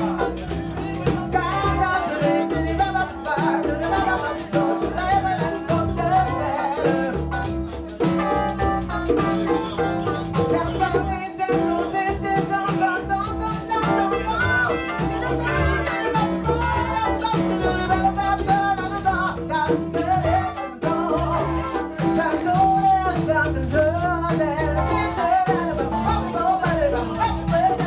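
Live band playing at a jam session: a rhythmic bass line and beat under a wavering sung or played melody, with a steady held note running through.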